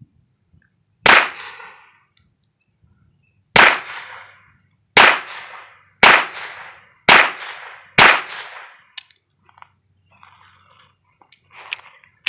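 Six shots from a Beretta 950B Minx pistol firing .22 Short, each a sharp crack with a short echo. The first comes about a second in, the second about two and a half seconds later, then four more about a second apart.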